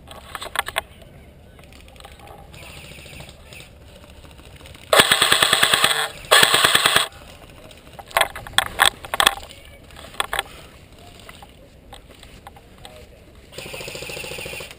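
Airsoft electric rifle (Lancer Tactical PDW) firing two full-auto bursts of about a second each, about five seconds in, followed by a few shorter bursts and single shots.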